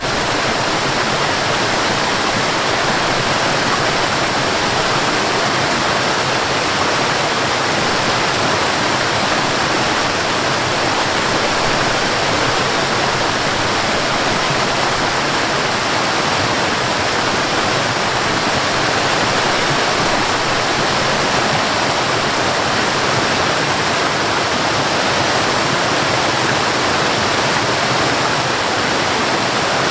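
Waterfall: water falling and splashing in a steady, even rush with no let-up.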